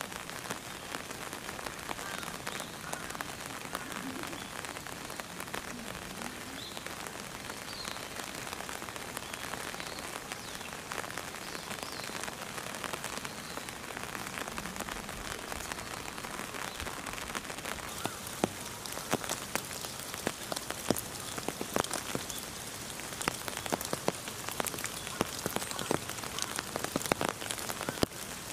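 Steady rain falling, with drops pattering sharply on a hard surface. The drop hits grow louder and more frequent about two-thirds of the way in.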